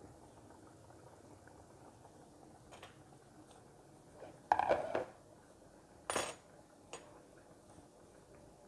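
Metal kitchenware handled on a counter: a ringing clatter about halfway through, a shorter clang a moment later, then a light click.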